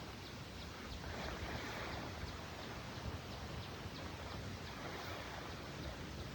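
Steady rushing outdoor background noise with a low rumble, and a faint high chirp repeating about three times a second.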